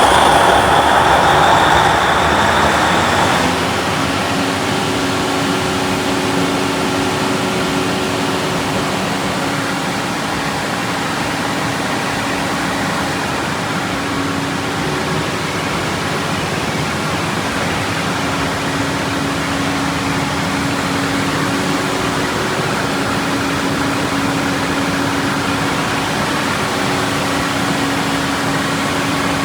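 Standby genset engine on a test run, just started: louder for the first three or four seconds, then settling into a steady run with an even hum.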